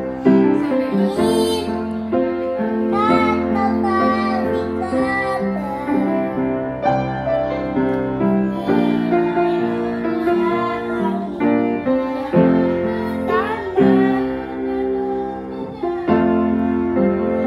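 Upright piano played in chords and melody while a young girl sings along.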